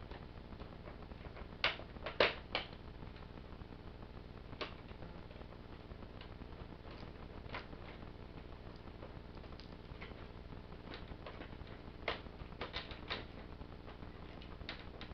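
Hard plastic parts of a large Transformers Trypticon toy clicking and knocking as they are handled and forced into place, in scattered sharp clicks with a few louder ones about two seconds in and a short cluster near the end.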